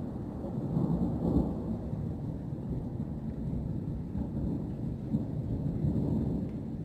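Thunder rumbling, long and low, swelling about a second in and again near the end.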